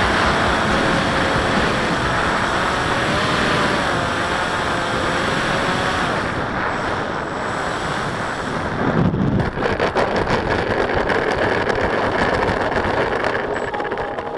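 Wind noise and motor whine picked up by the onboard camera of an FPV model airplane on landing approach, the whine's pitch wavering. About nine seconds in it touches down and rattles along a concrete runway in a rapid run of clicks and scrapes.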